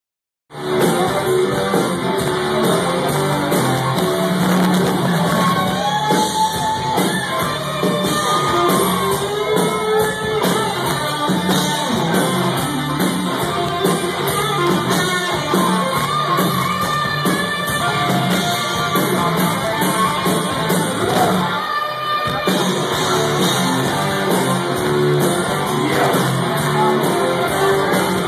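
Live rock band playing loudly with guitar and a shouted, sung lead vocal, echoing in a large hall, with a brief drop about three quarters of the way through.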